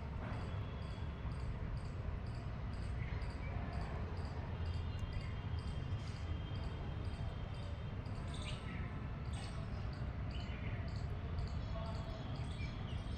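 Steady low rumble with a few faint, short bird chirps scattered through.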